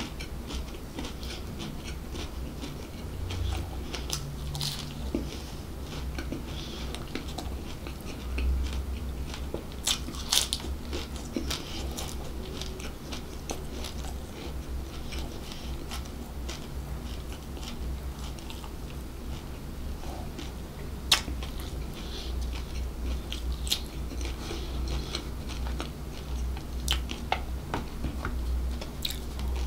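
Close-miked chewing of soft bread, with wet mouth clicks and smacks scattered throughout over a steady low hum.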